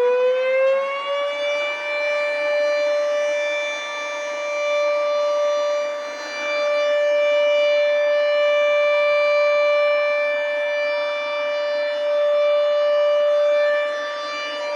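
Newly installed air raid siren sounding on test. It finishes winding up to full pitch in the first second or two, then holds one steady wail whose loudness swells and dips a few times.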